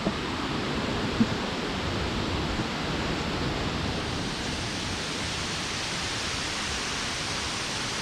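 Steady rushing roar of a nearby waterfall, an even wash of noise, with a couple of brief knocks near the start and about a second in.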